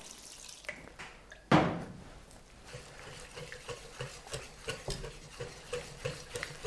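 Wire whisk beating a flour-and-water batter in a ceramic mixing bowl, with quick light ticks of the whisk against the bowl. A single knock about one and a half seconds in.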